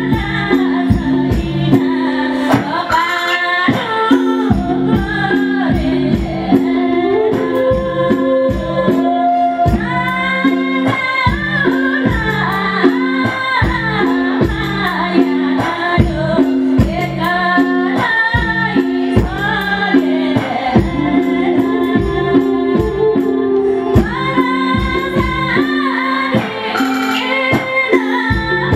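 A woman sings an old-style Nepali folk tune through a microphone over a live band, with keyboard and a steady, repeating drum rhythm.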